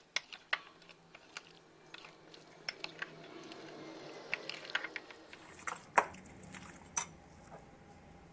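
Spoon stirring boiled potato and pea achar in a bowl: irregular clicks and knocks of the spoon against the bowl over a soft wet squelch of the mash, with the loudest knock about six seconds in.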